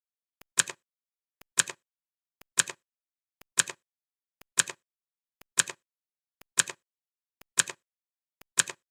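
Clock ticking sound effect, one sharp tick a second, each tick a faint click followed by a louder double click.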